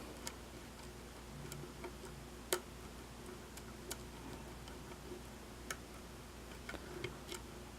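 Faint, scattered clicks and ticks of a diamond pick working the pins of a five-pin pin-tumbler lock under tension, with the sharpest click about two and a half seconds in.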